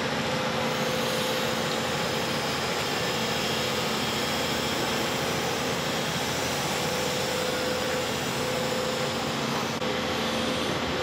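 Crawler excavator's diesel engine running steadily while it lowers a concrete drainage pipe on a strap from its bucket, with a constant engine hum.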